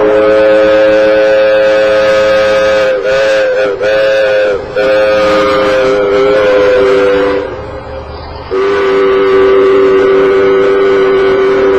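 Multi-chime locomotive air horns blowing loud, sustained chords. The first blast wavers with three short dips and cuts off about seven and a half seconds in. About a second later a second blast sounds on a lower chord.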